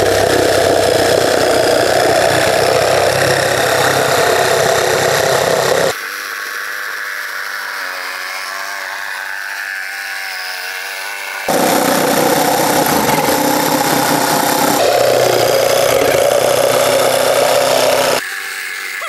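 Cordless TICHOP TJS-18-B jigsaw running and sawing a curve through a thick wooden board. The blade stroking through the wood makes a steady, dense buzz that falls quieter for several seconds in the middle and again near the end.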